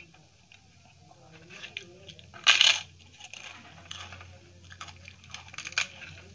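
Crisp papad cracking as it is broken, with one loud crackle about two and a half seconds in and smaller cracks later. Under it are quiet squelching sounds of rice and curry being mixed by hand.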